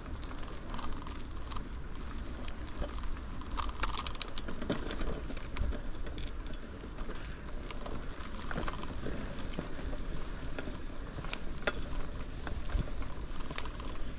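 A bicycle being ridden along a trail: a steady low rumble of rolling tyres and moving air, with scattered sharp clicks and rattles from the bike, several bunched together about four seconds in.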